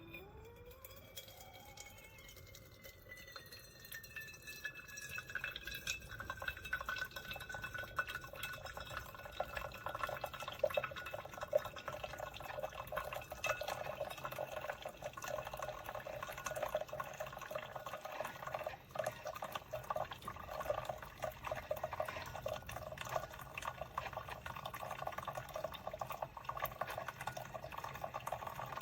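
Liquid pouring and trickling steadily into a container, with a pitch that glides near the start.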